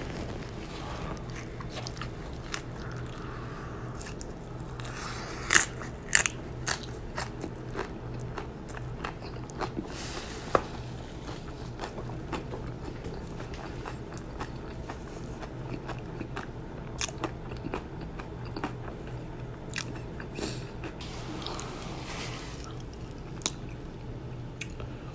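Close-up biting and chewing of crunchy shrimp tacos: sharp crisp crunches of the shell, the loudest about five to six seconds in and again near ten seconds, with softer chewing crackles in between. A low steady hum runs underneath.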